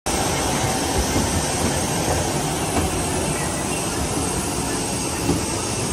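Steady jet aircraft noise on an airport apron: an even rush with a low rumble underneath.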